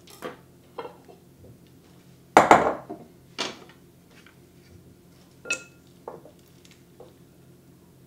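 A ceramic dinner plate set down on a wooden cutting board, the loudest knock about two and a half seconds in. Several lighter knocks and a short ringing clink follow as wooden salad servers are handled around a glass bowl.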